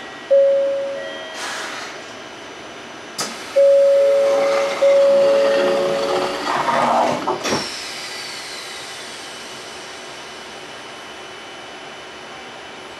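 Electronic chime tones sound at the door, a short one and then a longer series that steps down in pitch. About seven and a half seconds in, the passenger door of an Odakyu 60000 series MSE Romance Car shuts with a sharp knock. After that, a steady hiss from the standing train.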